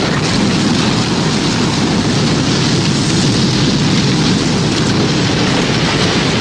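Tornado sound effect: a loud, steady, dense rush of storm wind, deep and rumbling with a rain-like hiss on top, unbroken throughout. No siren is heard.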